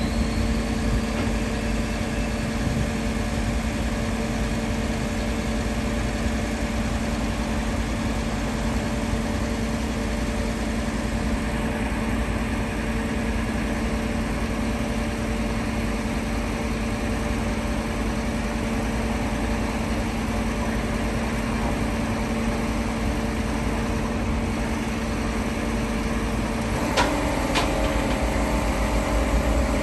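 Flatbed tow truck's engine idling with a steady hum. Near the end there are two sharp clicks, and the hum steps up to a higher pitch.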